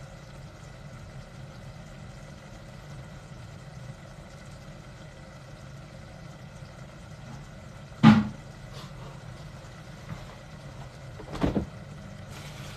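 Steady low hum with two sharp knocks of kitchen clatter, the louder one about eight seconds in and the second about three seconds later.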